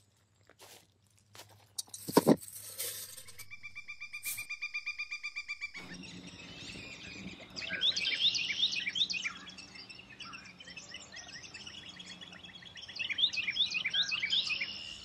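Wild birds chirping in rapid, sharp notes, loudest in two bursts about eight and thirteen seconds in, over a faint low hum. Before that, a brief loud rustle about two seconds in, then a few seconds of a steady, rapidly pulsing tone.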